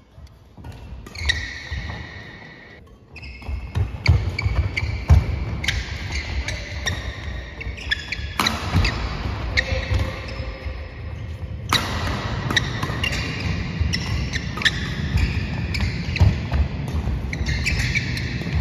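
Badminton doubles rally: sharp racket hits on the shuttlecock, with shoes squeaking and feet thudding on the wooden sports-hall floor.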